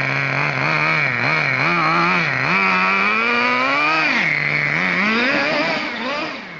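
Small two-stroke nitro glow engine of a 2WD R/C truck, heard close up and revving up and down several times with a buzzing note. It drops in level just before the end.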